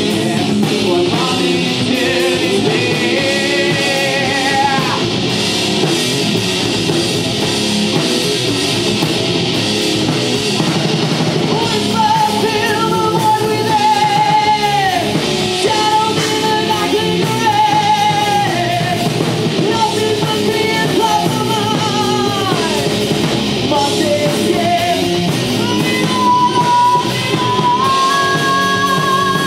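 Live rock band playing: electric guitar, bass guitar and drum kit, with a singer holding long wavering notes that drop in pitch at the end of each phrase.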